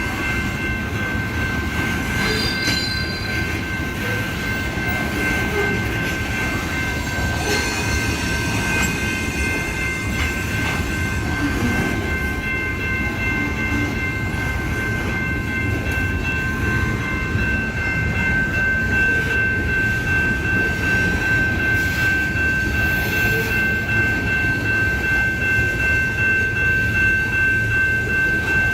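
Union Pacific freight train rolling along with a steady low rumble and a high, unbroken squeal from the wheels, growing a little louder about two-thirds of the way through.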